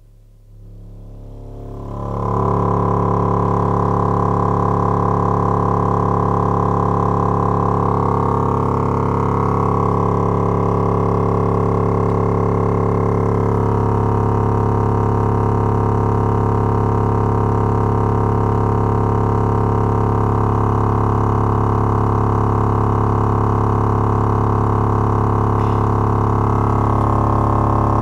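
Logitech Z5500 subwoofer driver running out of its enclosure in free air on a 35 Hz test tone: a steady, buzzy, distorted drone that swells in over the first two seconds and then holds. It is being stress-tested, driven hard enough that its voice coil glows red hot.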